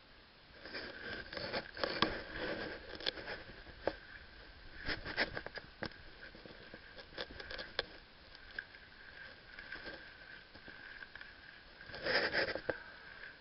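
Handling noise from a moving body-worn camera: irregular muffled knocks, scrapes and rustling of the wearer's gear and footsteps, loudest in clusters about a second in and near the end, over a steady faint high-pitched tone.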